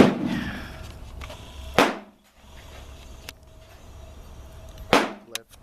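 Kel-Tec P17 .22 LR pistol firing three single shots: one right at the start, one about two seconds in and one about five seconds in.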